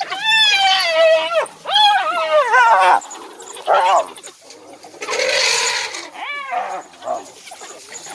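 Loud, wavering squealing calls from African wild dogs and a spotted hyena squabbling over a kill. Two long calls come in the first three seconds, with shorter ones near the middle and about six seconds in. A rushing noise comes about five seconds in.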